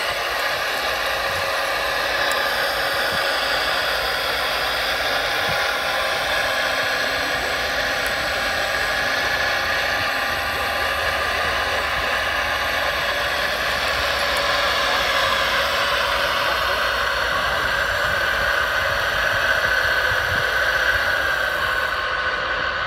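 Radio-controlled scale hydraulic excavator working while it loads dirt into a model dump truck. It gives a steady mechanical whine made of several pitched tones that drift a little in pitch as the arm and bucket move.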